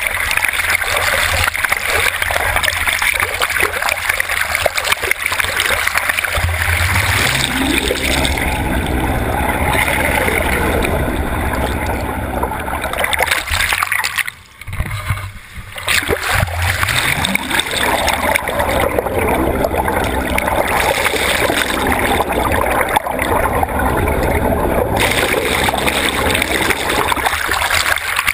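Water rushing and splashing over a camera housing held at the water's surface on the end of a fishing net beside a moving boat, with the boat's motor running underneath. The motor's pitch rises about a quarter of the way in and falls again a little after a brief muffled dip in the water noise just past halfway.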